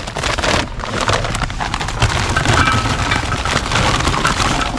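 Charcoal briquettes poured from a paper bag, clattering and knocking into a metal wheel rim, with the paper bag crinkling as it is shaken open.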